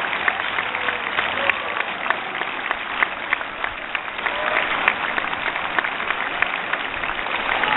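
A large crowd applauding, many hands clapping at once, with scattered voices mixed in.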